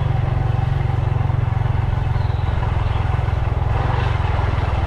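Motorbike engine running steadily while riding, a continuous low rumble.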